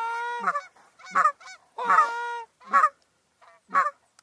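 Canada goose honks from a hunter's goose call: two long, level honks and several short clucks, each call separate, used to coax a flock in to the decoys.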